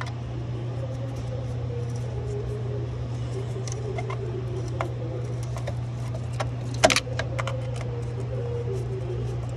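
Sharp metallic clicks and scrapes as a screwdriver-style tool works a rusted 8 mm bolt in a cut-open intake manifold, the loudest cluster about seven seconds in. Under them is a steady low hum with a wavering higher tone.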